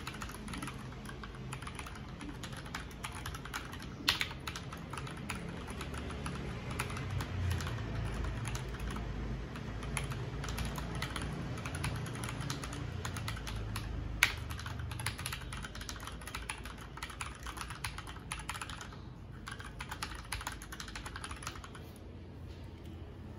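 Typing sound test on an Akko 3087 DS Ocean Star tenkeyless mechanical keyboard: a steady, dense run of keystrokes, with two sharper, louder key hits about four seconds in and about fourteen seconds in.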